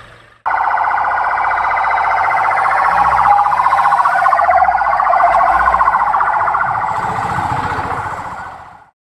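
Ambulance siren sounding a loud, fast warble as the ambulance drives past close by and pulls away. It is loudest midway, then fades and cuts off near the end.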